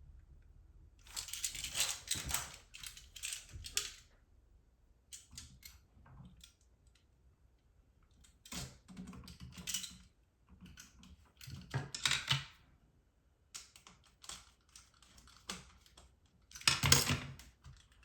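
Irregular bursts of clicking and scraping as the wires of a GFCI outlet are handled and fastened to its terminal screws, the loudest burst near the end.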